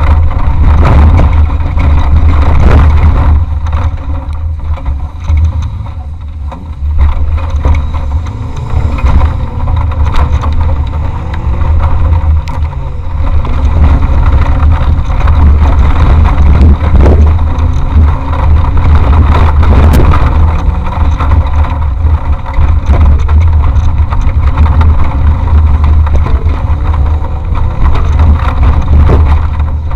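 Off-road race vehicle's engine revving up and dropping back as it drives over rough ground, under a heavy low rumble, with frequent knocks and rattles from the vehicle's body. It is heard from a camera mounted on the vehicle. The sound eases for a few seconds early on, then picks up again.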